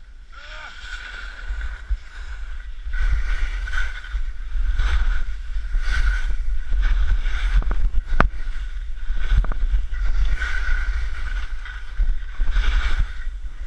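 Skis scraping and hissing across snow in quick turns, swelling roughly once a second, over steady wind rumble on the microphone from the descent. A sharp click comes about eight seconds in.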